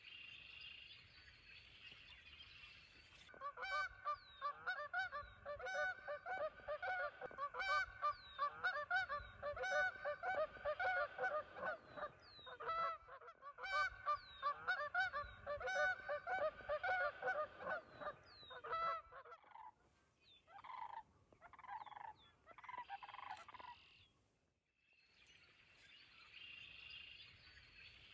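A flock of Canada geese honking, many calls overlapping in a rapid rhythmic chorus from a few seconds in until about 19 seconds, then a few separate honks. Before and after the chorus there are quieter stretches of steady high hiss with faint bird chirps.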